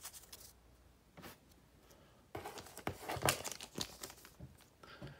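Foil booster-pack wrapper crinkling and crackling as it is handled, in irregular bursts of rustle and sharp clicks starting about two seconds in.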